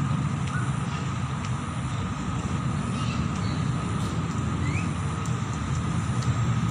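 Steady low rumble of outdoor background noise, with a few faint short high chirps.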